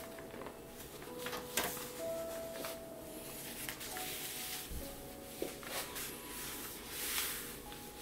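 A large sheet of thin painting paper rustling and crackling as it is lifted, handled and laid back down flat, with a few sharp taps and clicks, the loudest about a second and a half in.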